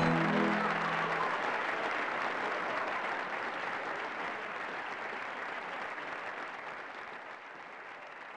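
Applause from a crowd that fades away slowly and steadily, after the song's last low note dies out in the first second.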